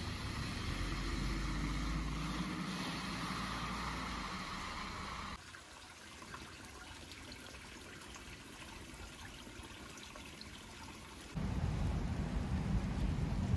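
Snowy street ambience in three abruptly cut stretches. First comes a steady rush like running canal water, with a car driving on snow. Then a quieter hush follows, and from about eleven seconds in a louder low rumble.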